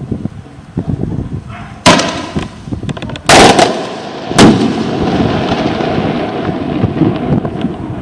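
Multi-shot star firework (multi-estrelado cake) firing: three loud bangs about two, three and four and a half seconds in, the middle one longest, then a steady rushing noise.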